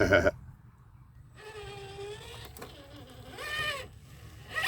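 Brushless Holmes Hobbies motor of an RC crawler truck, run on a 3S battery, whining as the truck drives: a steady whine about one and a half seconds in, then a whine rising in pitch a little after three seconds as it speeds up.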